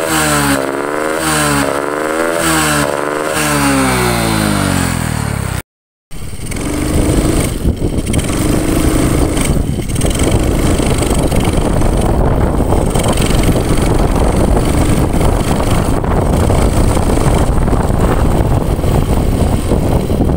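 Honda Supra X 125's single-cylinder four-stroke engine revved in about five quick throttle blips, each rising and falling in pitch with a 'ngok' sound on the gas, the symptom of a carburetor fault. After a short cut, a long stretch of steady engine noise.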